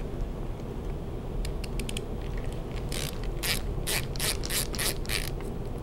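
A screwdriver turning out a side plate screw on a Smith & Wesson revolver, making short clicks. There are a few faint ones, then a run of louder clicks at about three a second in the second half.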